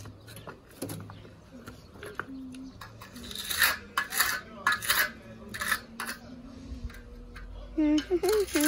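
Hand trowel scraping and smoothing wet mortar over a cinderblock wall, a series of short scraping strokes about half a second to a second apart.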